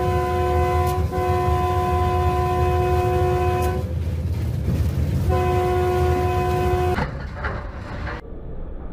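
Locomotive air horn sounding long, steady warning blasts: one held with a short break about a second in, a pause near four seconds, and another blast that stops about seven seconds in. A low, steady rumble from the locomotive runs under it.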